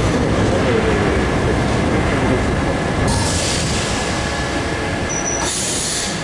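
Paris Métro MF67 steel-wheeled train heard from inside a car pulling into a station, with a steady rumble of wheels on rail. Bursts of high hissing come in about three seconds in and again near the end, with a brief high-pitched squeal just before the second.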